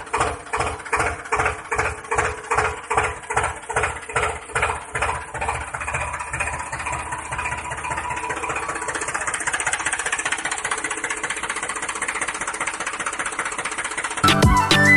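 An engine chugging in slow, even beats, about three a second, that then runs faster and steadier, like a tractor engine idling. Music comes in near the end.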